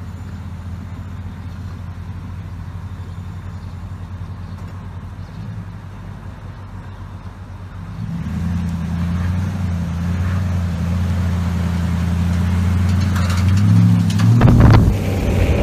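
Toyota Tundra pickup's engine running steadily as it reverses a boat trailer down a ramp, a low hum that grows louder about halfway through as the truck comes closer. A short, louder noisy rush comes near the end.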